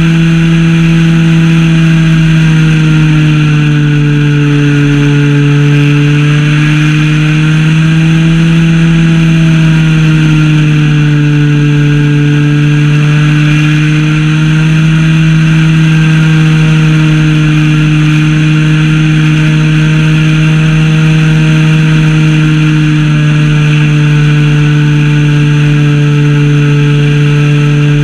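Zenoah ZP 20 two-stroke gasoline engine on a Super Senior 80 RC plane, running steadily, heard close up from a camera strapped to the plane. Its pitch sags and rises slightly a few times.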